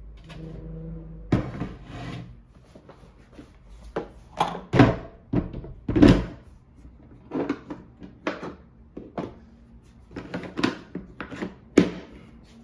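Irregular clunks, knocks and rustles of a cordless wet/dry vacuum's plastic parts and cardboard packaging being unpacked and handled.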